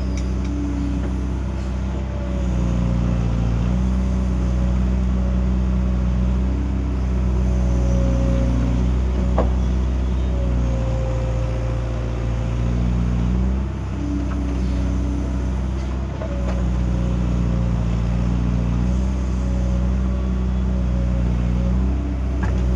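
Excavator's diesel engine running steadily under working load, its note shifting every few seconds as the machine works, with a wavering whine above it. There is one sharp clack about nine seconds in.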